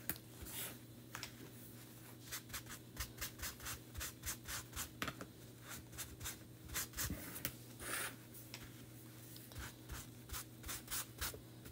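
Paper towel rubbing wax over small wooden cutouts in quick, irregular strokes, applied as a barrier before paste and transfer. The strokes are faint and scratchy.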